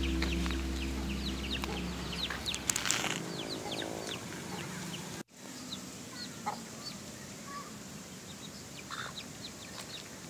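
Chickens clucking with many short high chirps, in the first seconds over background music that fades out. An abrupt cut about five seconds in, after which the clucks and chirps come sparser and quieter.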